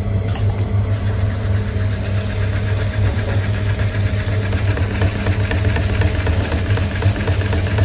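Electric potter's wheel motor running with a steady low hum while the wheel spins a mound of wet clay.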